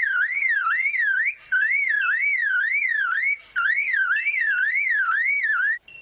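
Superb lyrebird mimicking a car alarm: a warbling tone that swings up and down about three times a second. It comes in three runs with short breaks and stops near the end.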